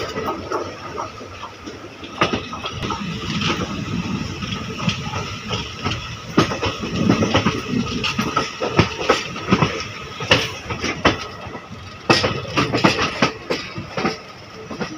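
Passenger train coach running along the track, heard from its open doorway: a continuous rumble of the running wheels with many sharp, irregular clicks and clatters from the wheels on the rails.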